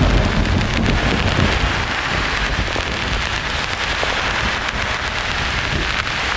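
Steady, even hiss of heavy rain with a low rumble of thunder that fades over the first two seconds or so.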